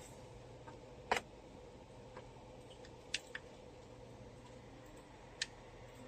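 Sharp plastic clicks and taps as the neck fan's housing is handled: the loudest about a second in, a quick pair around three seconds and another near the end. A steady low hum runs underneath.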